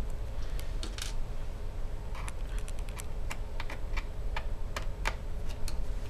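Irregular small sharp clicks and ticks of a pentalobe screwdriver working out the tiny bottom-case screws of a MacBook Air, with the driver and screws knocking lightly against the case. A faint steady hum runs underneath.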